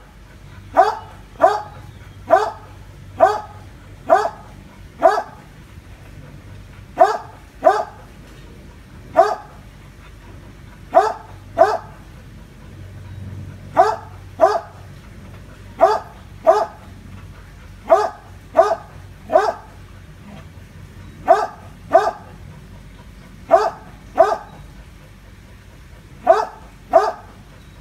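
A dog barking at a monitor lizard: about two dozen sharp barks, mostly in pairs with pauses of one to two seconds between them.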